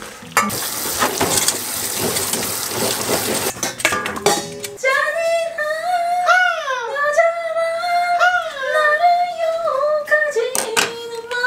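Water running onto freshly cooked noodles in a stainless-steel strainer in the sink for about five seconds, then a woman singing a song with held, sliding notes.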